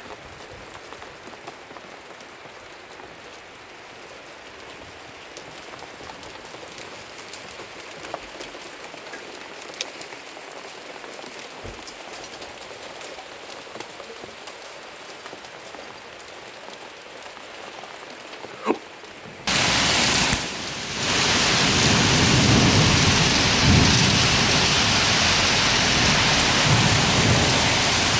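Rain falling steadily with a few sharp ticks. About two-thirds of the way in it jumps abruptly to a much louder, heavier downpour with low rumbling.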